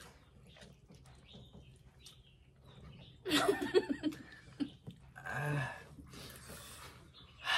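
People laughing: after a few quiet seconds, a loud burst of laughter about three seconds in, then more breathy laughter.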